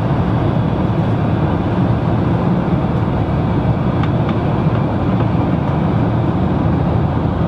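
Steady rushing hum of an airliner cabin: engine and air noise heard from inside the plane.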